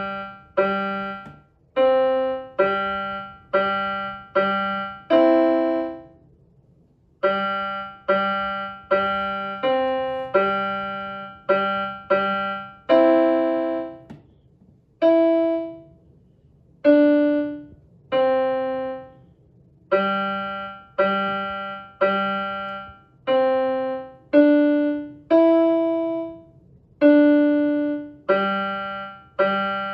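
Electronic keyboard with a piano voice, played slowly by a young beginner, one note or two-hand chord at a time in an even pace, each note fading before the next. There is a short gap about six seconds in.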